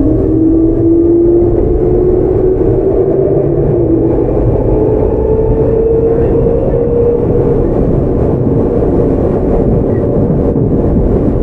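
Tokyu 9000 series electric train running, its early Hitachi GTO-VVVF inverter whining in several slowly rising tones as the train accelerates, the whine fading out about seven seconds in. A steady rumble of wheels on rail runs underneath.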